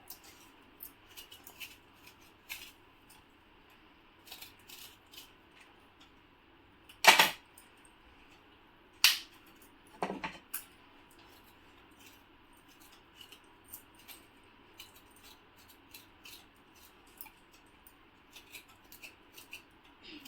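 Fresh ginger root being peeled by hand: faint scattered scrapes and small clicks, with a few louder knocks about seven, nine and ten seconds in.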